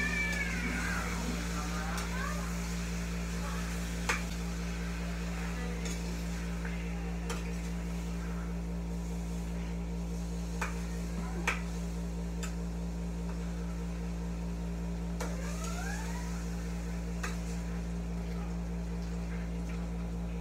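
Metal tongs clicking now and then against a wok as chicken pieces are turned over a gas flame, over a steady hum.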